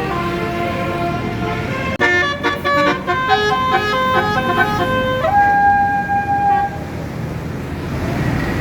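Bus basuri musical horn playing a quick melody of stepping notes, the tune ending on one held note about five seconds in, with engine and traffic noise underneath that is all that remains near the end.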